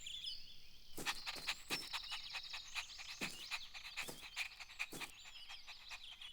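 Nature ambience: small birds chirping and whistling, with a dense run of short, sharp clicking calls from about a second in.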